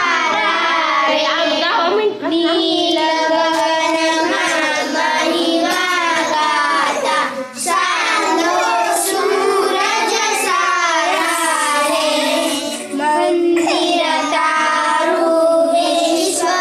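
A group of young children singing a prayer together, with short pauses between lines.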